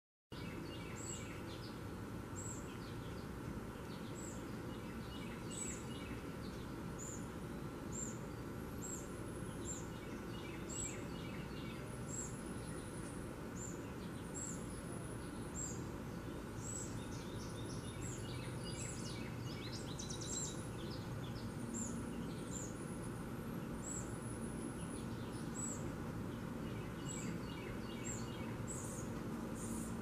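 Juvenile red-bellied woodpecker begging: short, high-pitched calls repeated over and over, the call of a hungry fledgling asking to be fed, over a steady background hiss.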